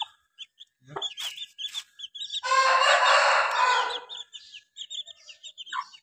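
Aseel chicks peeping over and over in short, high chirps. About two and a half seconds in, an adult chicken gives one loud, harsh call lasting under two seconds.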